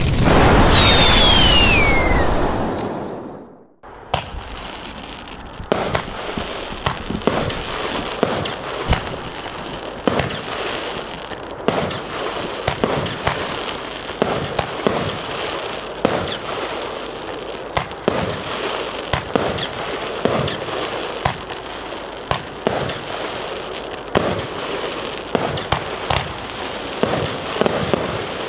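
A loud whoosh with a falling whistle-like tone for the first three seconds, then a Lesli Bombshell Chic fireworks battery firing its 19 shots in a row: sharp launches and bursts about once a second over a steady crackle from its crackling palm effects.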